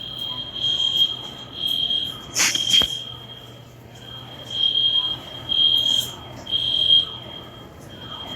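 Store fire alarm sounding during a scheduled alarm test: a high-pitched electronic horn beeping in groups of three with a longer pause between groups, the three-pulse evacuation pattern, over a fainter steady tone. A brief clatter cuts in about two and a half seconds in.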